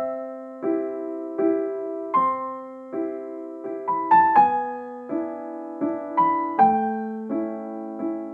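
Gentle piano music: a slow, simple tune of soft chords, a new note struck about every three-quarters of a second and left to fade, with a quick rising run of higher notes about four seconds in.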